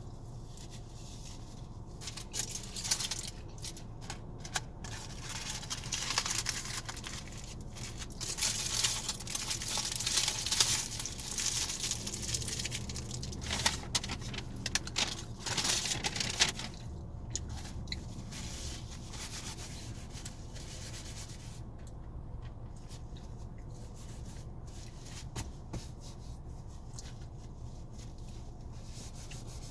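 Rustling and crinkling of food packaging being handled, with scattered clicks, busiest through the first half and fading to occasional small noises later, over a low steady hum.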